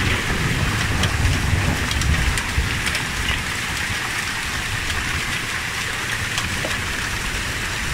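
Hailstorm with rain: a steady hiss of falling hail and rain, dotted with scattered sharp ticks of hailstones striking surfaces, over a low rumble.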